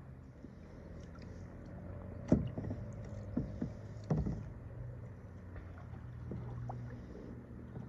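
Kayak being paddled on calm water: paddle strokes with a few sharp knocks, the loudest about two seconds in, over a low steady hum.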